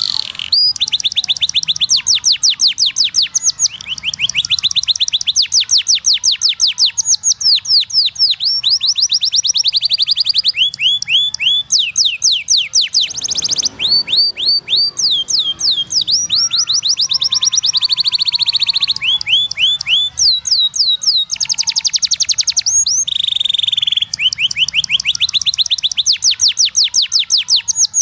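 Domestic canary singing a long unbroken song of rapid trills: fast runs of repeated downward-sweeping notes, each phrase a second or two long before the bird switches to a new speed and pitch, with a few held notes between them.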